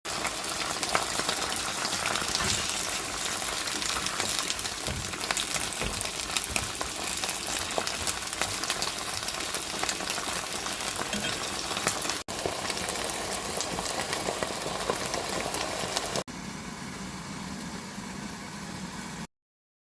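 Kimchi, onion and tomato sizzling as they stir-fry in olive oil in a pan, a dense crackling fry. The sound cuts twice, at about twelve and sixteen seconds, and the last part is quieter before it stops abruptly near the end.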